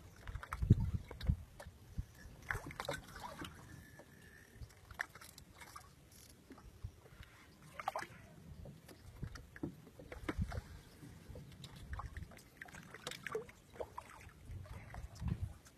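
Irregular knocks and thumps of a small boat and its gear being handled, with light water sloshing.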